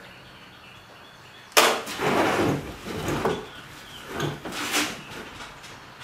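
Handling noise of pine 2x4 pieces and a cordless drill on a workbench: a sharp knock about a second and a half in, then bumping and scraping of wood, and another short burst of clatter near the end.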